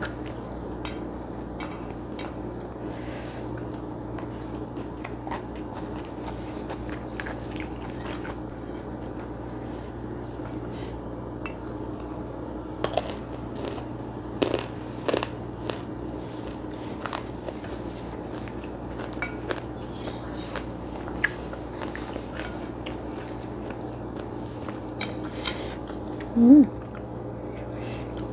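Chewing and crunching of food eaten by hand, with small clicks of fingers and food against an enamel plate, over a steady low hum. Near the end comes a brief rising 'mm'.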